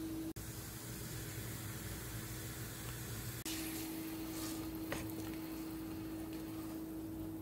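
Pot of water at a rolling boil, a steady hiss under a constant electrical hum, with a faint click about five seconds in. The sound drops out for an instant twice.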